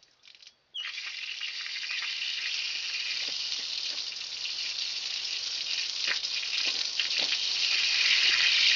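Water rushing out of a newly installed boiler drain valve as it is opened about a second in, a steady hiss that grows a little louder toward the end.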